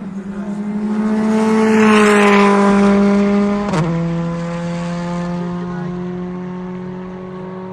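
Rally car passing at speed: the engine note climbs and grows loud to a peak about two seconds in. About a second and a half later there is a sharp crack and a sudden drop in pitch, after which a lower, steady engine note fades as the car draws away.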